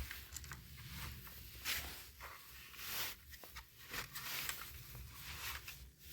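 Light handling noise: scattered soft knocks and rustles as a cordless tire inflator's plastic body is picked up and turned over.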